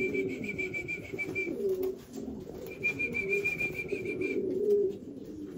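Buchón pouter pigeons cooing in a loft, a steady low wavering chorus. A high trill of rapid pulses sounds twice over it, each about a second and a half long.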